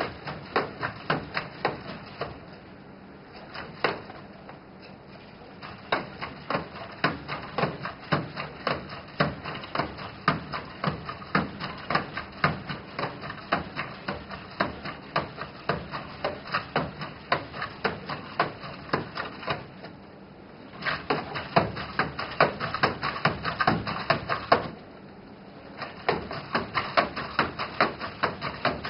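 NAO humanoid robot moving and walking on a tabletop: a dense run of rapid clicks and taps from its joint motors and feet, pausing briefly a few times and getting louder in the last third.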